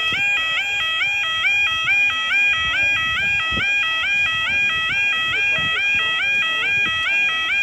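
Level crossing warning alarm sounding continuously, a loud two-tone warble that switches rapidly and evenly between a lower and a higher pitch, warning that the barriers are down for an approaching train.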